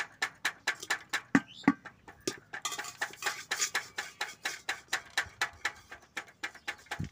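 Quick, even tapping, about five taps a second, of a thin metal rod on a rubber patch freshly glued onto a bicycle inner tube, beating the patch down so the rubber solution bonds.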